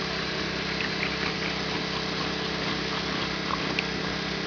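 Steady drone of a motor running without change, with a few faint small clicks.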